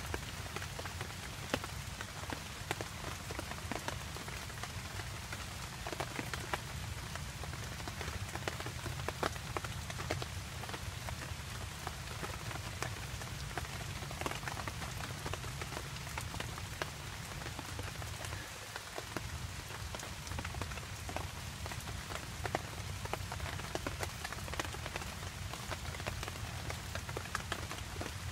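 Steady rain falling in woodland, with many single drops striking close by.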